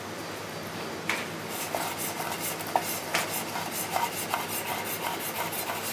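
A kitchen knife slicing raw meat on a bamboo cutting board: short, irregular taps and scrapes of the blade against the wood, starting about a second in.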